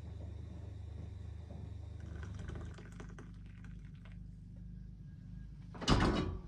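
Coffee poured from an enamel coffee pot into a ceramic mug, with small clinks and taps as the pot and mug are handled, over a steady low hum. Near the end comes a brief loud rustle right at the microphone.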